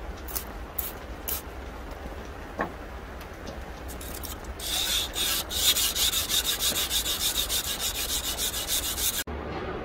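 Sandpaper rubbed by hand along the edge of a steel knife blank. It scratches lightly at first, then about halfway in turns to fast, steady back-and-forth strokes that stop abruptly near the end.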